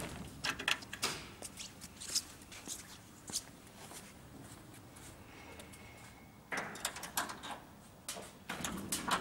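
Handling noises around a veneer vacuum press: scattered clicks and knocks with some rustling, busiest in the last few seconds, and a faint thin whine for about a second and a half near the middle.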